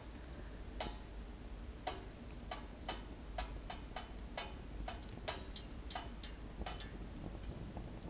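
Kerosene heater burning, its metal body ticking and pinging as it warms: over a dozen sharp, irregularly spaced ticks, some with a short metallic ring.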